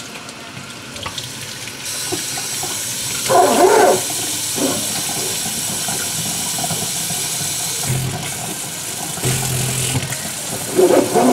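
Kitchen faucet's pull-down sprayer running water over a head of cabbage, a steady rushing hiss that starts about two seconds in. A woman's voice cuts in briefly twice, once near the start of the spray and again near the end.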